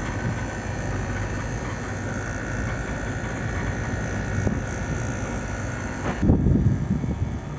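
Air-conditioner outdoor unit running: a steady hum of the compressor and condenser fan with a steady high tone over it, the unit cooling with its refrigerant line already cold. A short loud rumble comes about six seconds in.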